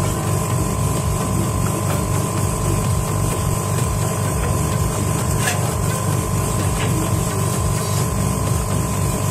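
A machine running steadily: a constant low, pulsing rumble with a fixed hum above it.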